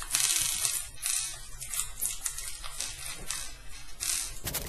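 Small metal nuts and clear acrylic parts being handled and fitted by hand: irregular clicks, scrapes and rustling, over a low steady hum.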